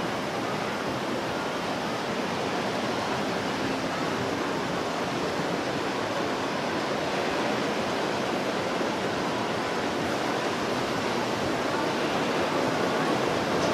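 Steady rush of water from a passing motor yacht's hull and wake.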